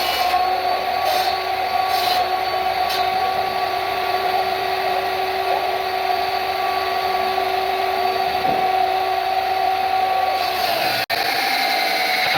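Woodworking power tool running steadily with a constant whine, working wood. The sound drops out for an instant about eleven seconds in, then resumes.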